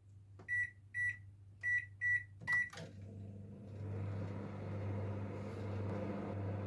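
Microwave oven keypad beeping five times as the cooking time is set and started. About three seconds in, the oven starts running with a low, steady hum.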